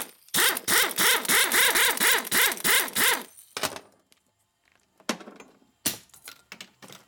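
Air-powered tool on a yellow air hose running in rapid pulses for about three seconds, driving a puller to draw the old pinion bushing out of a Harley Evolution cam cover. It stops, and a few sharp metal knocks follow as the parts are set down on the steel bench.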